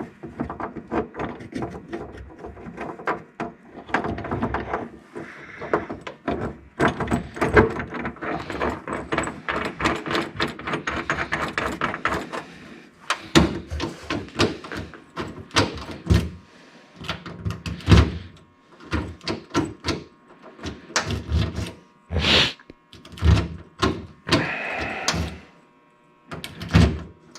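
A run of metallic clicks, rattles and knocks from hand work on a car's trunk lock assembly. They come thick and fast for a few seconds in the first half, then settle into scattered separate knocks.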